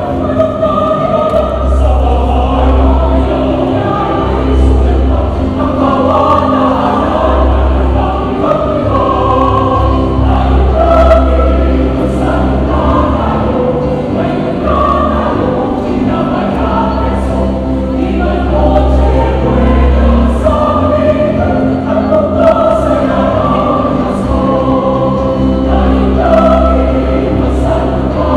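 Church choir singing a hymn with instrumental accompaniment and a strong, steady bass.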